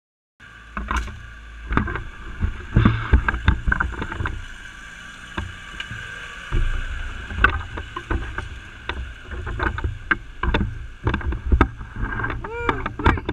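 Kubota M5700 tractor's diesel engine running under load, with frequent knocks and rattles, as the tractor works its way through a deep mud hole.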